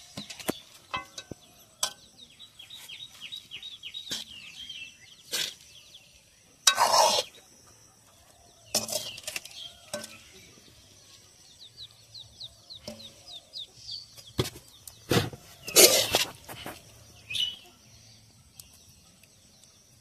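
A metal ladle knocks and scrapes in a metal kadai as thick curry is stirred. There are scattered sharp clinks and two louder rasping scrapes, about seven and sixteen seconds in. Small birds chirp in quick runs in the background.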